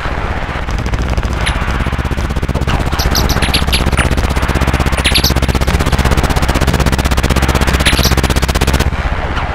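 Harsh rapid rattling noise over a low steady hum, with short rising chirps on top, cutting off suddenly near the end.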